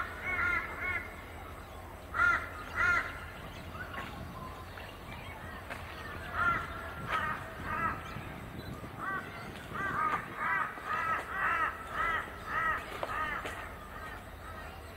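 A crow cawing: runs of short harsh calls, a few at the start, a pair about two seconds in, a couple more around six to seven seconds, and a longer run of about eight calls from about ten seconds in.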